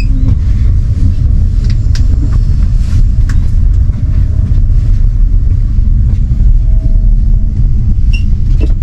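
Passenger train running along the track, heard from inside the carriage: a loud, steady low drone with a few faint clicks.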